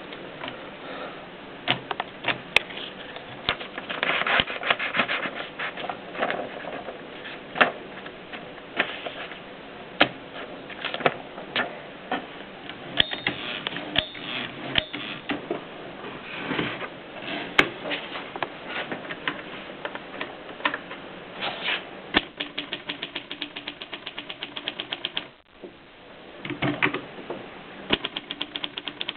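Triumph Norm portable typewriter being typed on: irregular sharp key strikes, with a fast, even run of clicks a little over three quarters of the way through.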